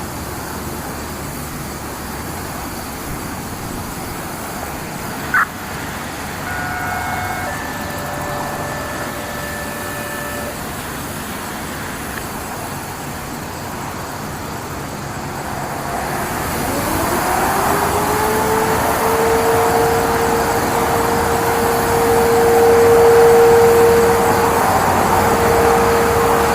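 Steady road-traffic ambience with a single sharp click about five seconds in. Then, a little past halfway, a Sentry 15V2T-B two-tone outdoor warning siren winds up, its pitch rising over a few seconds to a steady wail.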